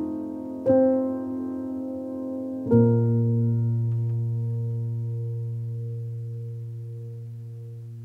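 Background piano music: a chord struck about a second in, then a final chord with a deep bass note near three seconds in that rings on and slowly fades.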